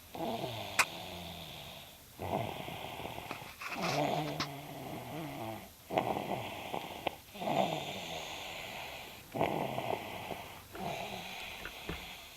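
Sleeper snoring steadily, about seven snores in a row, each about one and a half to two seconds long, with a low rattling pitch on each breath.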